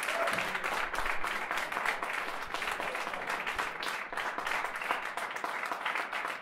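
Concert audience applauding: a dense patter of many hands clapping.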